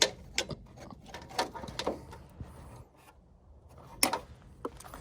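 Handling noises: a few scattered light clicks and knocks as wiring is grabbed and worked by hand.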